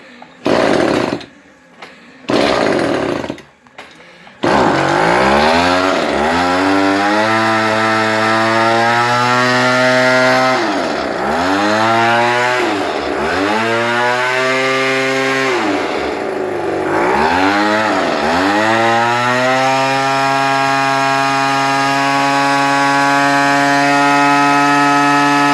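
Small two-stroke weed-eater engine on a friction-drive bicycle being started: it fires in a few short bursts, catches about four and a half seconds in, and runs with the throttle blipped several times, the pitch dropping and climbing back, before holding a steady high rev.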